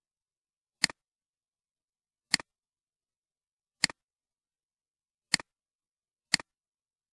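Computer mouse clicking five times, each click a quick double tick of the button pressing and releasing. The clicks come about a second and a half apart, the last one sooner, with silence between them.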